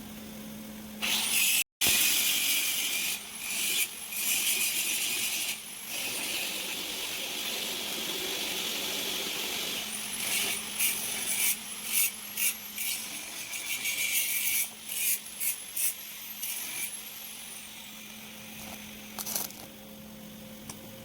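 Metal being cut on a JCB 3DX backhoe loader's dipper nose: a harsh high hiss starts about a second in and then comes in repeated short stops and starts, over a steady low hum.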